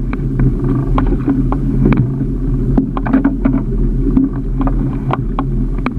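Small fishing boat's engine running with a steady low hum, with irregular sharp clicks and knocks over it.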